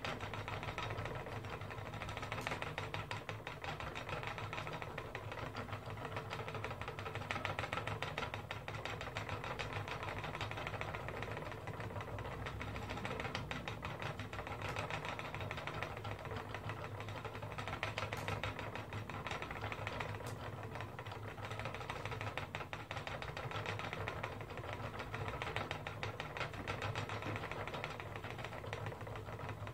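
Wooden spinning wheel running steadily while wool is spun, its flyer and bobbin turning with a continuous rapid clicking whirr.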